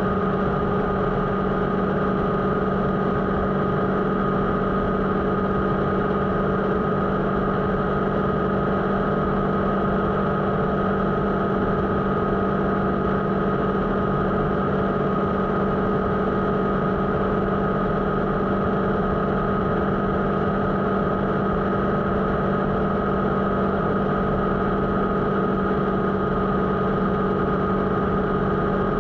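Motorcycle engine running at a steady, unchanging pitch with no revving or gear changes.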